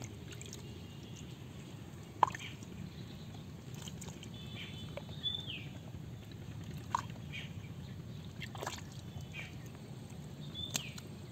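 Hands sloshing and groping through shallow muddy water in a small dug hole, with a few short splashes, the loudest about two seconds in.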